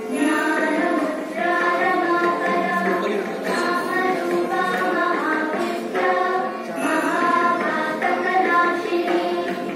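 Music with singing voices, a slow, steady sung melody.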